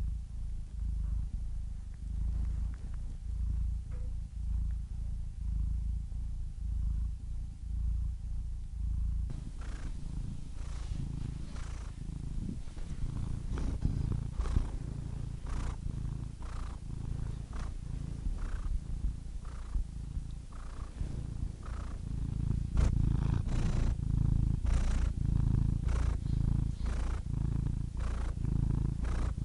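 Cat purring, a low rumble that swells and eases with each breath in and out. From about a third of the way in, scattered soft clicks sound over the purr.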